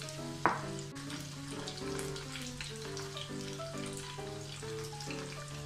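Cornflour-coated sweet corn kernels sizzling and crackling in hot oil in a kadai, under background music with a simple melody. A single sharp knock about half a second in, from the stirring spoon against the pan.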